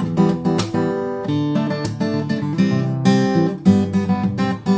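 Background music: acoustic guitar strumming and picking.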